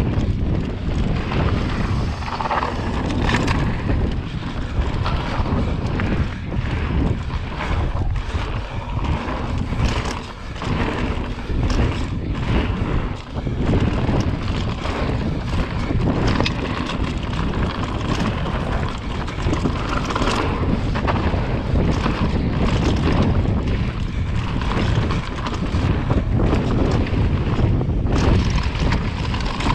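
Mountain bike riding fast down a dirt singletrack: a steady rush of wind on the microphone and tyre noise, with many sharp clattering knocks as the bike goes over bumps.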